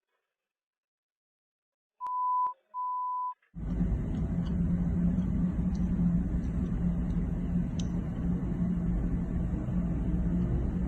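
Two short electronic beeps at the same pitch, each about half a second long, then a steady low rumble that starts about three and a half seconds in and runs on evenly.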